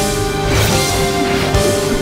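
Loud soundtrack music that swells in suddenly at the start, with long held notes and a few drum hits.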